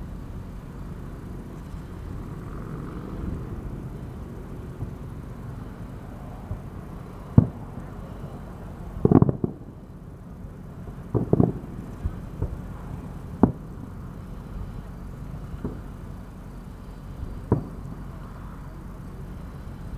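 Aerial firework shells bursting at a distance: a string of sharp booms about every two seconds, some in quick pairs, the loudest about seven seconds in. Between the booms there is a steady low rumble.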